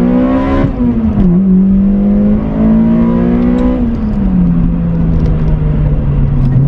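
Toyota Corolla Sportivo's 1.8-litre four-cylinder VVTL-i engine, heard from inside the cabin as it accelerates. Its pitch drops at a gear change about a second in and climbs again. Around four seconds in it falls back and runs at lower revs, then picks up sharply near the end.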